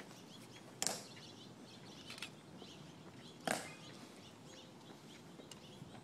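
Two sharp heel clicks from a Tomb Guard sentinel's metal-tapped shoes on the stone plaza, about two and a half seconds apart, each with a short echo, over faint bird chirps.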